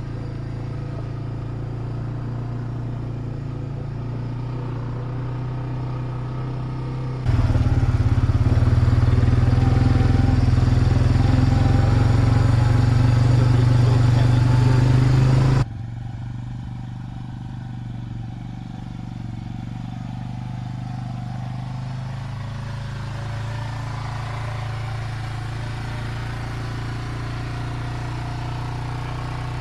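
Suzuki 400 ATV's single-cylinder four-stroke engine running steadily while riding. It is louder for about eight seconds in the middle, coming in and dropping out abruptly.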